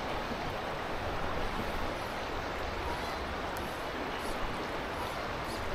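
Steady rush of flowing river water, even and unbroken.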